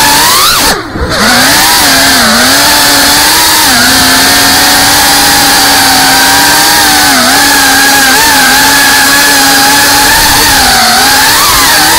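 FPV quadcopter's brushless motors and propellers whining, heard loud through its onboard camera. The buzzing whine drops away briefly about a second in, then picks back up and holds steady with small wobbles in pitch.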